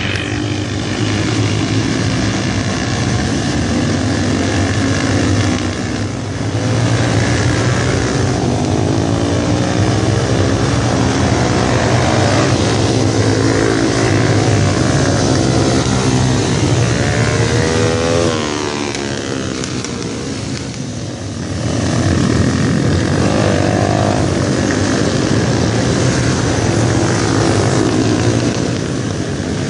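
Several minibike racing engines passing in a pack, their engine notes rising and falling over and over as the riders accelerate and brake. The sound eases briefly about six seconds in and again around twenty seconds in.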